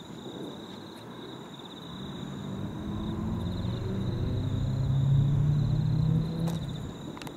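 Diesel-electric locomotive approaching, its low engine drone growing louder to a peak about five seconds in, then easing slightly near the end.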